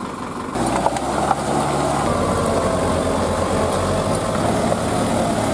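Tractor diesel engine running steadily at close range, its low note jumping suddenly louder about half a second in.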